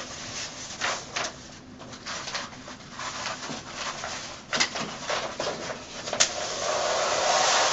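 Wax-paper backing being peeled off self-adhesive fabric wallcovering: paper crinkling and rustling with scattered crackles, then a sharp snap about six seconds in and a continuous peeling noise as the liner comes away.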